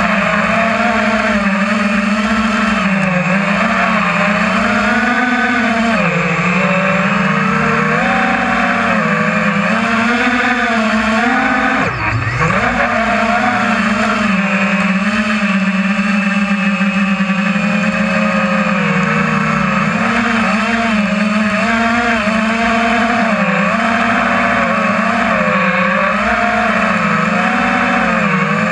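FPV drone's electric motors and propellers buzzing loudly, the pitch rising and falling continually with the throttle. About twelve seconds in, the throttle drops briefly and comes back up.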